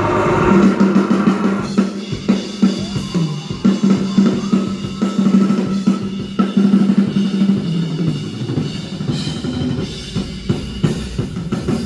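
Live band playing an instrumental intro: a drum kit with kick and snare hits over a held low note that drops away about eight seconds in.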